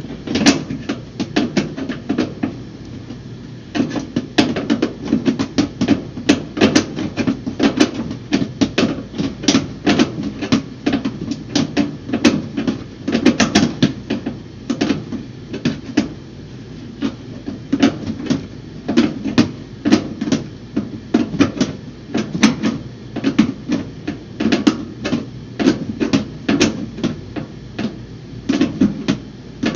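Hand tool clicking and knocking against the sheet-metal fan housing of an upright beverage chiller in quick, irregular strokes as the fan is worked loose.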